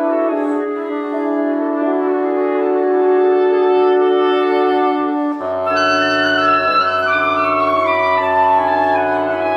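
Wind quintet playing slow, sustained chords. About five and a half seconds in, a low bass note enters under the chord and higher voices move above it.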